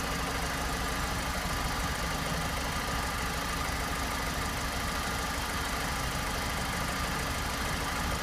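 1.6-litre van engine idling steadily with a misfire, which is traced to the engine computer not delivering correct pulses on one ignition-coil output line.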